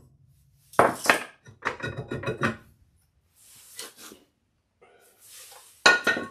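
Metal clanks and knocks as a rusty rear brake rotor is hammered loose and pulled off the hub, then a ringing clang near the end as the cast-iron rotor is set down on the concrete floor.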